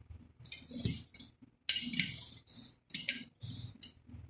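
Popcorn kernels popping in hot salt inside a closed pressure cooker: irregular sharp pops, some ten of them, spaced unevenly and sometimes in quick pairs. The popping is the sign that the corn is turning into popcorn.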